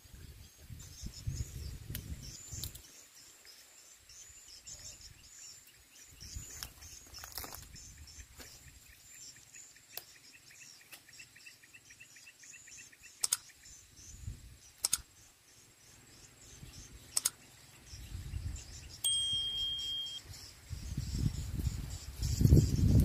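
Outdoor wetland ambience of insects and birds chirping in a repeating high trill. A few sharp clicks come in the middle, and low rumbling bursts come near the start and again near the end.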